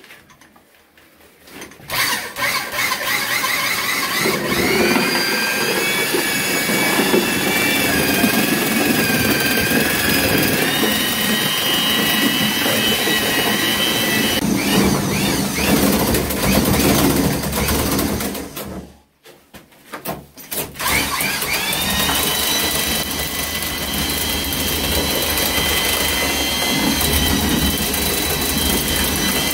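Handheld electric paddle mixer churning thick cement mortar in a drum. Its motor whine rises as it spins up about two seconds in and then runs steadily. About two-thirds of the way through it stops for a moment, then spins up again and runs on.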